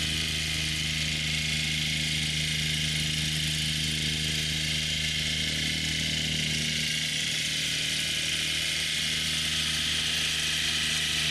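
Diesel engine of a backhoe loader running at a steady speed, a constant hum with no change in pitch or level.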